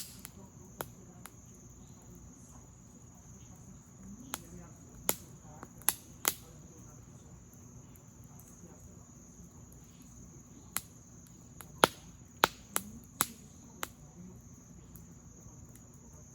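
Campfire wood crackling, with about a dozen sharp pops at irregular intervals, bunched a few seconds in and again past the middle. Crickets trill steadily in the background.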